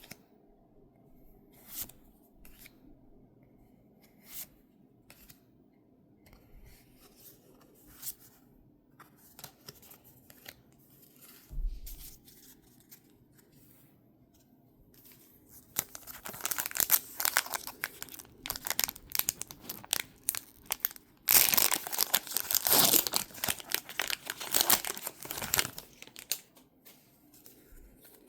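Foil Pokémon card booster pack being torn open and its wrapper crinkled, after light clicks of handling; the tearing and crinkling start about halfway through and are loudest near the end.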